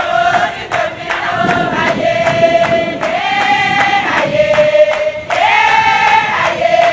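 A group of women singing a chant together in held notes that step up and down, over a steady percussive beat.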